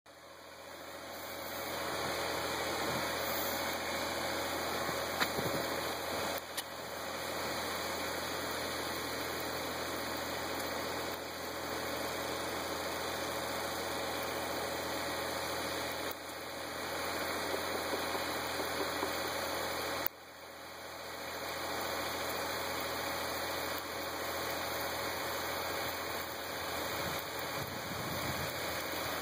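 Kubota BX24 compact tractor's three-cylinder diesel engine idling steadily.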